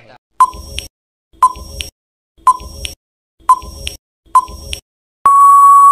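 Quiz countdown-timer sound effect: five short beeps about a second apart, then one long steady beep near the end signalling that time is up.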